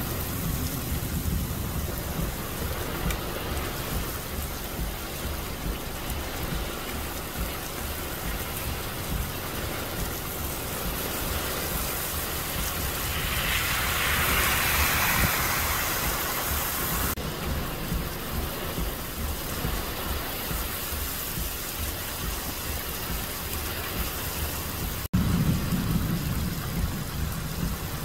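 Heavy rain falling steadily, a continuous hiss that grows louder for a few seconds around the middle. A low rumble comes in near the end.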